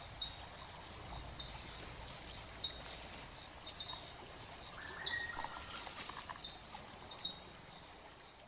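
Jungle ambience: insects chirping in a steady, even rhythm over a faint background hiss, with a brief bird-like call about five seconds in, fading out near the end.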